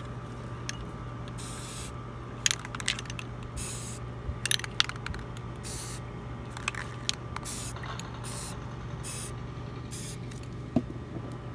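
Aerosol spray-paint can sprayed in about seven short hissing bursts onto the water in a hydro-dip tub, laying the paint film for the dip, with sharp clicks between the sprays.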